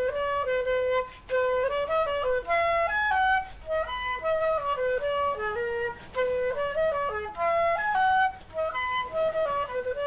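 Background music: a solo flute-like melody of quick stepping notes.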